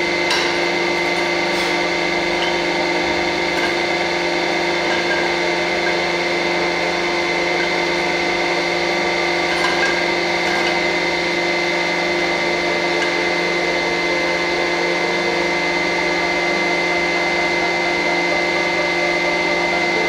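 Hydraulic press's pump motor running steadily, a constant machine hum with a high whine on top, and a few light clicks of a cast-iron bench vise being handled on the platen.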